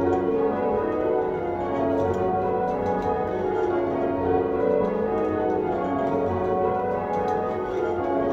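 Church tower bells rung full circle by hand from ropes, striking one after another in a continuous ringing pattern of overlapping bell tones. Heard from the ringing chamber below the bells.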